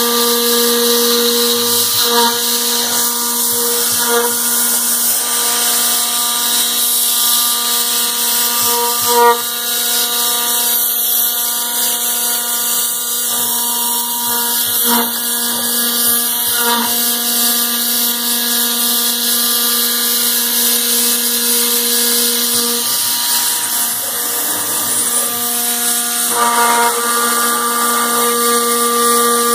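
CNC router spindle running at a steady high whine while milling aluminum, over a constant hiss of the cut. The whine drops out for about three seconds roughly two-thirds of the way through, then comes back at the same pitch.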